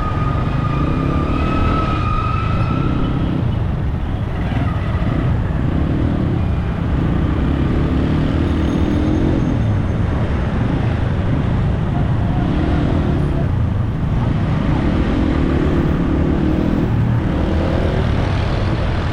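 Road vehicle on the move in traffic: a steady low rumble of engine and road noise, with an engine hum that rises and falls every few seconds as it speeds up and slows. A steady high tone sounds for a couple of seconds near the start.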